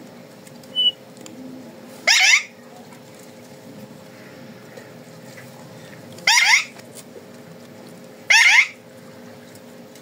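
Alexandrine parakeet screeching: three short, loud calls about two, six and eight and a half seconds in, with a brief faint chirp near the start.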